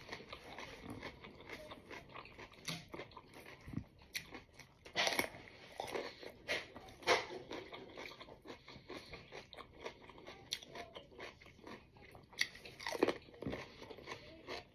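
Close-up crunching and chewing of raw cucumber: a string of crisp bites with chewing between them, the loudest crunches about five, seven and thirteen seconds in.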